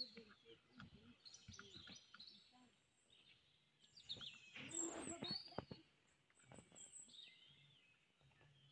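Faint birds chirping, with short high, gliding calls repeating throughout, and a brief louder sound about five seconds in.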